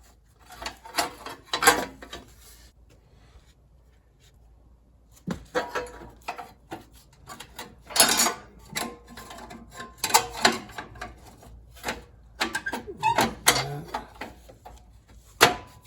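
Irregular clicks, clinks and knocks of hand tools and metal parts being handled while refitting the shielding on a lawn tractor, with a quiet stretch in the first few seconds.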